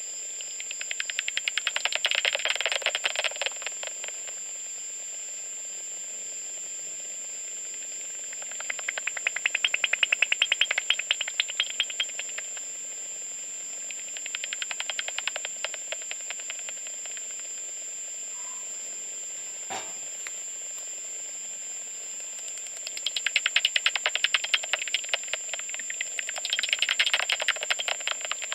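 Bat echolocation calls made audible by a homemade bat detector: bursts of rapid clicking, each lasting a few seconds, about five times as bats fly past. Between the bursts the detector gives a steady hiss with a constant high tone.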